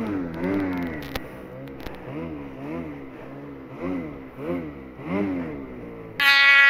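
Snowmobile engine revved up and down over and over, its pitch rising and falling about twice a second as the throttle is blipped in deep snow to lift the skis. Near the end the sound switches abruptly to a loud, steady, high engine drone.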